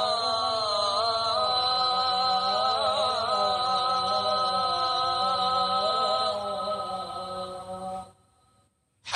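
Background music of long, slowly wavering held notes over a steady tone. It fades out about eight seconds in, leaving a second of silence.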